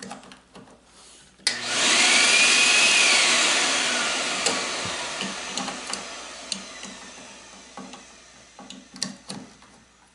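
Vacuum cleaner switched on through the extension cord's repaired outlet switch: it comes on suddenly with a whine and then winds down slowly over several seconds, its pitch falling. A few sharp switch clicks near the end.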